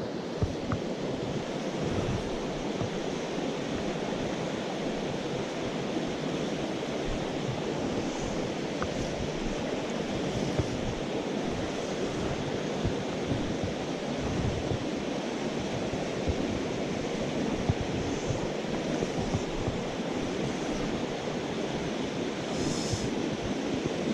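Mountain stream rushing steadily over its bed, with a few faint clicks.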